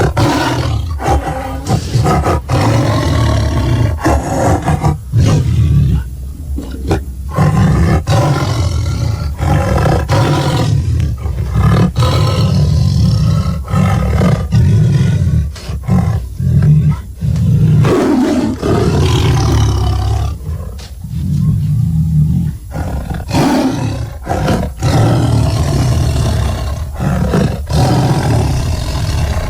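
A string of loud monster roar and growl sound effects, one after another with short gaps between them, deep and heavy in the low end.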